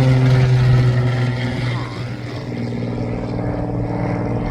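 Airplane engine and propeller drone passing overhead, a steady buzzing hum whose pitch slowly falls. It gets a little quieter about two seconds in.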